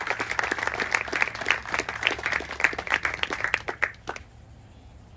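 A group of people clapping and applauding, thinning out and stopping about four seconds in.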